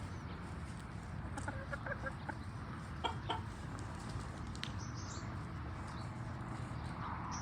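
Domestic chickens clucking in short scattered calls, a few clusters over the first half, over a steady low background rumble.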